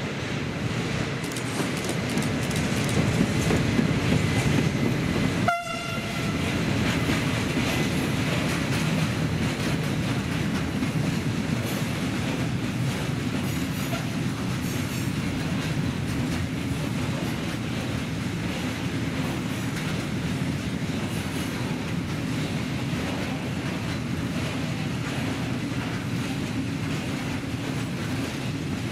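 A freight train hauled by an electric locomotive passing, loudest as the locomotive goes by, then the long string of open wagons rolling past with wheels clattering over the rail joints. A short horn blast sounds about five or six seconds in.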